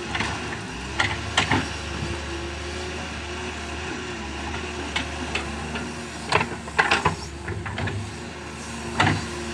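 Doosan DX excavator's diesel engine running steadily, with irregular clanks and knocks as the machine works soil. The loudest knocks come in a cluster about seven seconds in and once more near the end.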